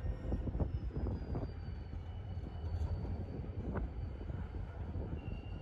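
Freight train of covered hopper cars rolling past: a steady low rumble with occasional sharp clacks of wheels over rail joints, and a faint thin high squeal that slides down in pitch.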